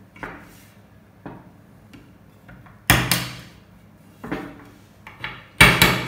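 Hammer tapping a small nail to knock wooden plugs out of the holes in a pine rail: a series of sharp wooden knocks at irregular spacing, the loudest about three seconds in and near the end.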